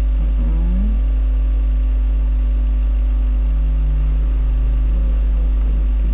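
Steady, loud low electrical mains hum, unchanging throughout, with faint wavering sounds underneath.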